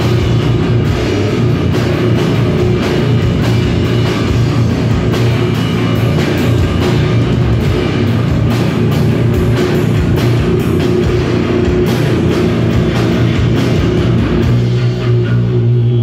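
A live band plays loud heavy rock/noise: distorted electric guitar, a drum kit and electronic noise, dense and constant. About fourteen seconds in, the upper crash of the sound thins and a low drone carries on underneath.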